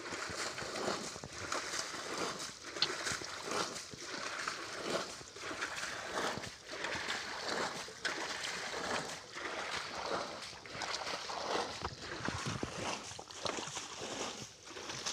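Repeated irregular splashing and sloshing in shallow, muddy water.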